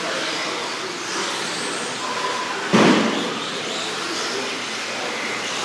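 1/10-scale electric 4WD RC buggies racing on an indoor dirt track: the steady whine of their electric motors and the hiss of tyres on dirt, echoing in a large hall. A single loud thump about two and three-quarter seconds in stands out above it.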